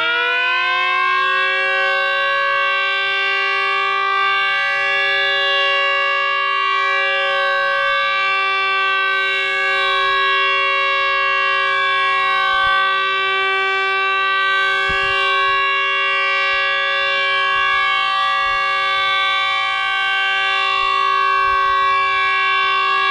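3D-printed miniature H.O.R. Model 50 Super Sirex dual-head siren with 7- and 10-port rotors, finishing its wind-up in the first second and then running at full speed with a steady two-tone chord. Its pitch shifts slightly as the horns rotate.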